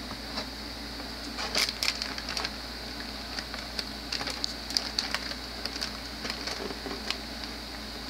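Crinkling and clicking of a plastic model kit's cellophane-bagged parts and cardboard box being handled. The irregular crackles are loudest about a second and a half in, over a steady background hiss.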